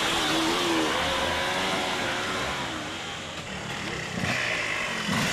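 Dirt bike engine revving as it rides the hare scramble course, its pitch rising and falling with the throttle and easing off briefly past the middle.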